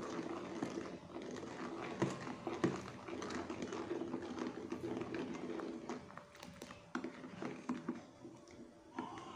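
Plastic spoon stirring a runny chocolate pudding mixture round a metal pan, scraping and swishing against the bottom and sides, with a few sharper knocks of the spoon on the pan.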